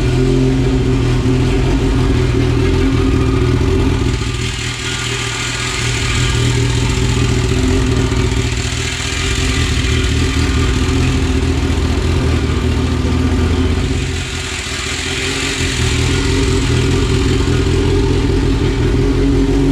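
Honda B18 DOHC VTEC four-cylinder running on its first start, loud with no exhaust system fitted. It holds a steady fast idle, rising and falling twice, around five seconds in and again around fifteen seconds in.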